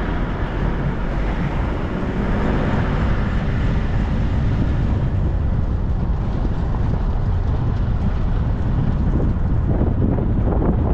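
Wind buffeting the microphone over the steady road and engine noise of a moving Sprinter motorhome.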